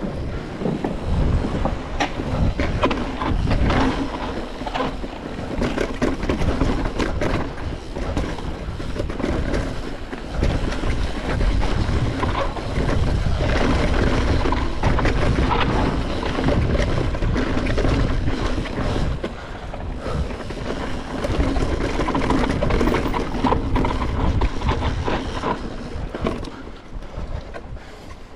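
Cross-country mountain bike riding fast down a dirt forest trail, heard from an action camera mounted on the rider: continuous tyre noise on the dirt with the bike rattling and clattering over bumps, and wind on the microphone.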